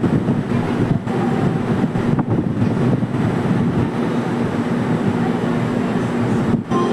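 Train running by with a steady rumble.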